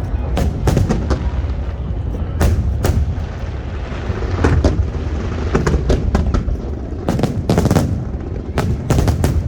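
Fireworks display: aerial shells bursting in a rapid, uneven string of loud bangs over a continuous deep rumble.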